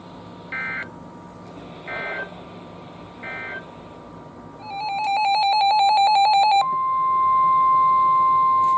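NOAA Weather Radio alert signalling. Three short warbling data bursts about a second and a half apart mark the end of the previous alert. About two seconds of rapid electronic beeping follow, then the loud, steady 1050 Hz warning alarm tone that announces the next warning.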